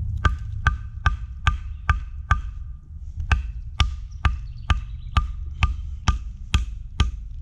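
A wooden baton striking the spine of a knife to split wood (batoning), driving the blade through a knot. Sharp knocks come steadily, about two and a half a second, each with a brief ring: a run of about six, a pause of about a second, then about nine more.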